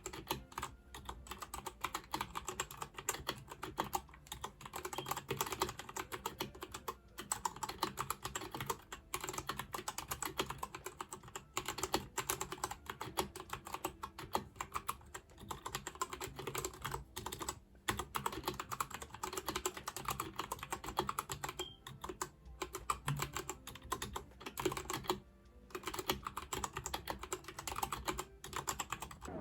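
Typing on a Royal Kludge RK84 mechanical keyboard with brown (tactile) switches: a steady stream of rapid keystrokes, broken by a few short pauses.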